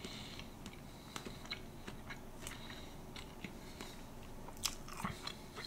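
A person chewing food close to the microphone: faint, irregular little clicks and crunches, with a couple of slightly louder clicks near the end.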